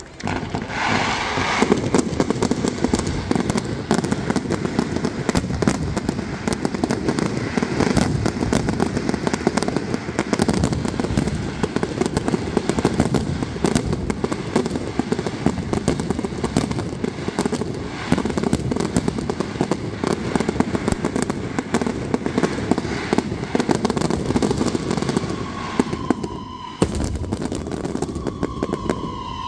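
Aerial fireworks display: a dense, continuous barrage of shell bursts and crackling. Brief whistles sound near the end.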